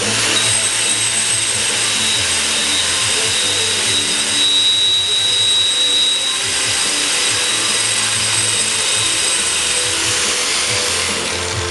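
Variable-speed angle grinder with a diamond cup wheel grinding down the set concrete edge of a planter: a steady high whine over a gritty hiss that dies away near the end. Background music plays underneath.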